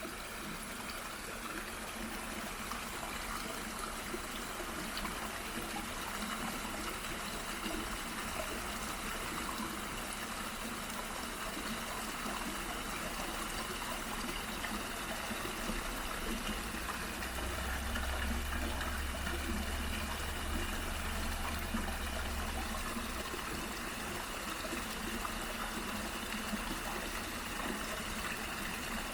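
A small waterfall and stream running steadily, the water's rush and murmur continuous. A low rumble comes in for a few seconds past the middle.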